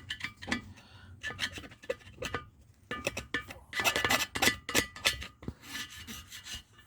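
Small steel chisel scraping carbon deposits out of a diesel heater's clogged burn chamber, in irregular bursts of short rasping strokes with a faint metallic ring.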